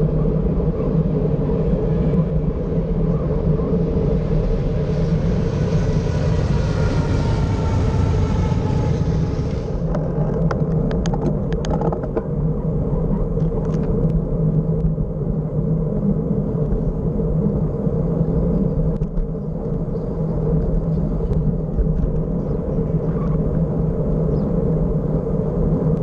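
Steady wind and road rumble picked up by a camera on a moving bicycle. About ten seconds in the sound changes abruptly to a duller rumble with scattered clicks.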